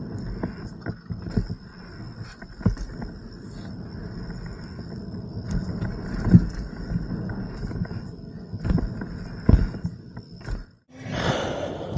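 Mountain bike rolling over a rough dirt trail: a steady tyre rumble with frequent knocks and rattles from the bike, under a steady high-pitched whine. The sound cuts out briefly near the end.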